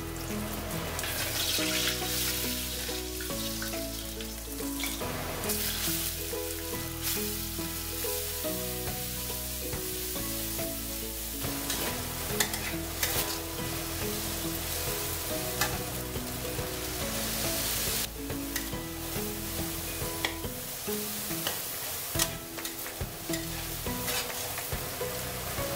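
Ginger and then strips of wheat gluten sizzling in hot oil in a wok, with a metal spatula scraping and clicking against the pan as they are stir-fried. Background music with a melody and bass runs underneath.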